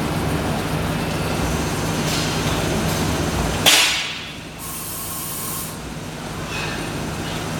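Citizen Cincom K16 CNC sliding-head lathe running with a steady hum and low tone. About three and a half seconds in comes a sudden loud hissing burst, after which the hum drops and a high hiss follows for about a second.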